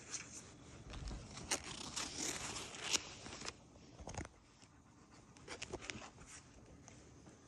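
Card binder being handled and opened: scraping and rustling as the strap comes off and the cover swings open, with a few sharp clicks and a knock about four seconds in.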